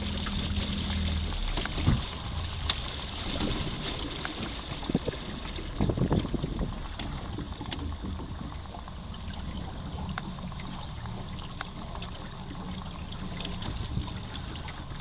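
Solar-powered 24-volt electric trolling motor running steadily on a moving aluminium canoe: a low steady hum with water washing along the hull. A few light knocks in the first half.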